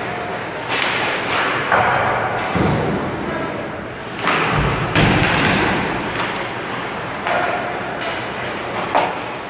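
Ice hockey play echoing around an arena: about five sharp knocks of sticks and puck against the ice and boards, each with a reverberating tail, with a couple of dull low thuds near the middle.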